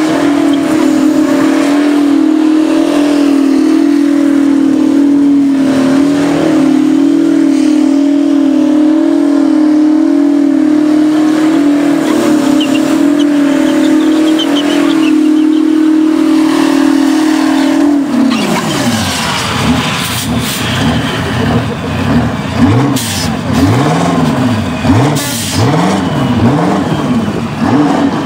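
Twin-turbo V16 engine of a drag-racing Mack truck held at steady high revs through a tyre-smoking burnout. About eighteen seconds in the note drops off, and the engine is then revved up and down again and again in quick blips.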